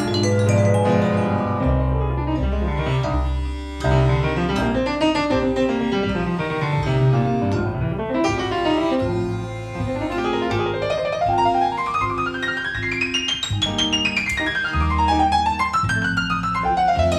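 Live milonga played by a small ensemble led by a grand piano, with low bass notes held underneath. About eleven seconds in, the piano plays a fast run that climbs high and sweeps back down.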